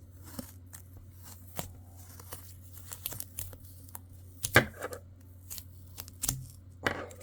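Adhesive tape being peeled and unwound from a screwdriver handle: irregular crackling and tearing, with a few sharper pulls about four and a half, six and seven seconds in.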